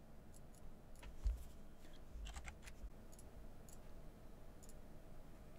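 Faint computer mouse clicks, a dozen or so at irregular intervals, one a little louder with a soft thud about a second in, over quiet room tone.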